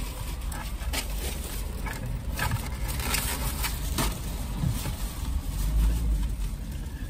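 Car idling, heard from inside the cabin as a steady low rumble, with several short clicks and rustles of things being handled.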